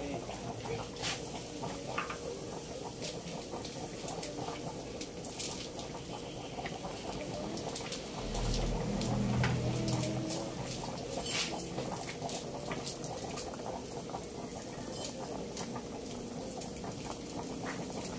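Pork nilaga broth at a rolling boil in a metal pot: steady bubbling with scattered small pops and clicks. A low rumble swells briefly about halfway through.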